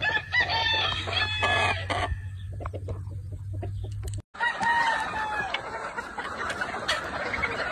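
Gamefowl roosters crowing, with clucking between the crows. The sound drops out completely for a moment about halfway through.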